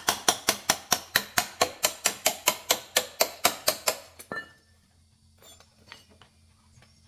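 A quick, even series of sharp taps, about five a second, that stops about four seconds in.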